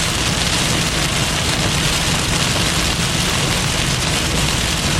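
Steady rain falling on a moving car, mixed with tyre and road noise.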